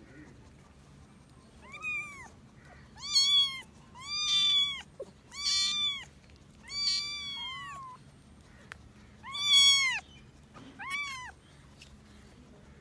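Very young kitten mewing in distress while held by a hand: seven short, high-pitched cries about a second apart, with a pause of a couple of seconds before the last two.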